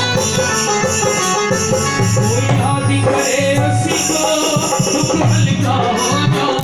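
Live bhajan music: a harmonium playing sustained chords and melody over a dholak drum beat, with jingling hand percussion keeping the rhythm.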